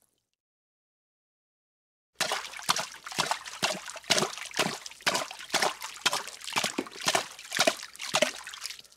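Water splashing over and over in quick, uneven strokes, roughly two a second, starting about two seconds in after a stretch of silence.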